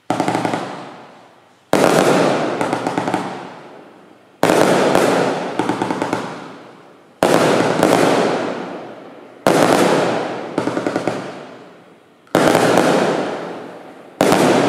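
Firework barrage cake firing: seven sharp bangs come about every two and a half seconds. Each is followed by a crackle of glitter that fades away.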